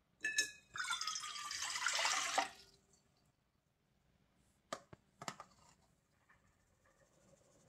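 Water poured into a container for about two seconds, then two short knocks a little later.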